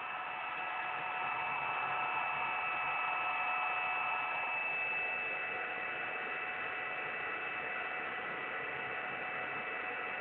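A three-phase electric motor on a variable-frequency drive, coupled to a generator, running steadily: an even whirring hum with several steady high whining tones on top.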